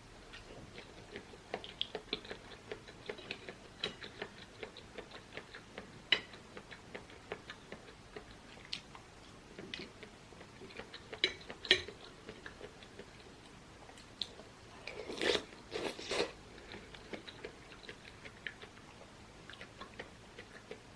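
Close-miked chewing and mouth sounds: soft repeated clicks and smacks of someone eating, with two louder, longer noisy sounds about fifteen seconds in.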